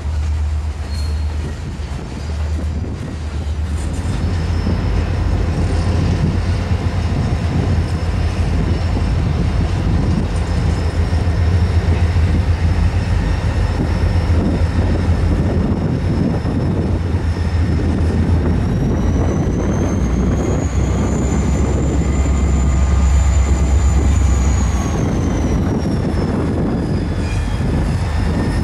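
Freight train rolling past. First loaded railcars clatter by on their wheels, then the train's EMD SD40-3 diesel locomotive and a second diesel behind it rumble in and pass. A high wheel squeal rises in pitch about two-thirds of the way through and falls again near the end.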